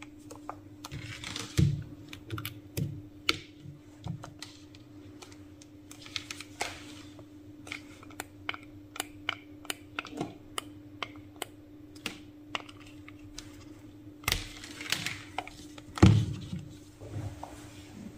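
Irregular plastic clicks and taps from hands handling the body of a Parkside PSSA 4 B2 cordless screwdriver, with a louder knock near the end and a faint steady hum underneath.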